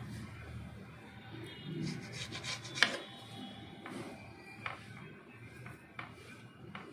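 Soft rubbing and scraping of dough being lifted off a metal plate, with a few sharp clicks against the metal, the loudest about three seconds in.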